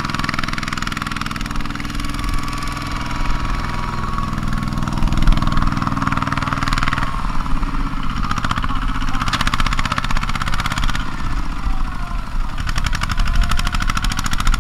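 Single-cylinder Kubota diesel engine of a two-wheel walking tractor, running steadily while hauling a trailer of rice sacks through a muddy field; its note changes about halfway through.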